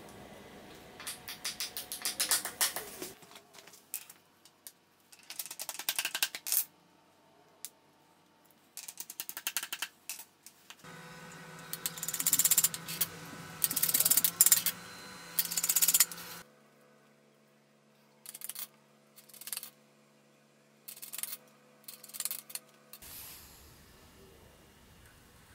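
Claw hammer tapping small fittings into particleboard furniture panels: runs of light, quick taps, then a few single taps near the end.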